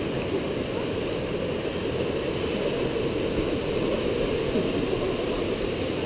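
Steady rushing of a waterfall running down sloping rock slabs into a pool.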